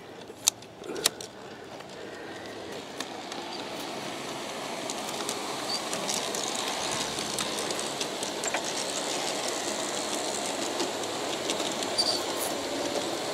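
A couple of sharp clicks from a G-scale track switch being thrown by hand, then a G-scale Aristo-Craft model passenger train led by E9 diesel units running past. Its wheels and motors make a steady rumble that grows louder over the first few seconds, then holds, with scattered light clicks from the wheels on the rails.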